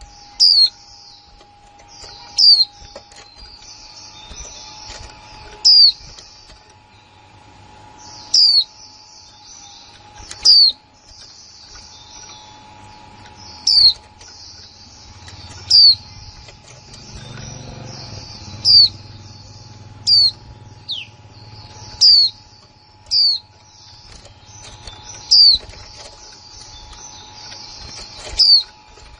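Caged white-eyes calling: loud, sharp chirps that sweep down in pitch, one every two seconds or so, over a steady high twittering.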